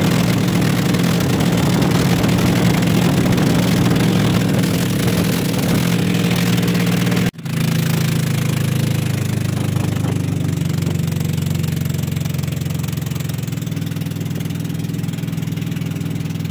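Motorized outrigger boat (bangka) engine running steadily under way. It cuts out for an instant about seven seconds in, then carries on a little quieter and with less hiss.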